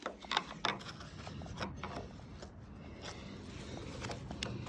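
Irregular metallic clicks and scraping as a tool works at an old water heater's drain valve to clear it of packed sediment, with a few sharp clicks in the first two seconds.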